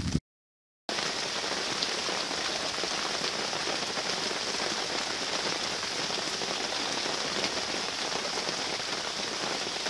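A moment of silence, then steady rain falling from about a second in.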